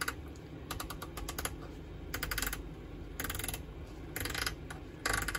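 Rotary channel selector of a Realistic TRC-433 CB base station clicking through its detents in quick runs about once a second, over a low steady hiss of static from the radio.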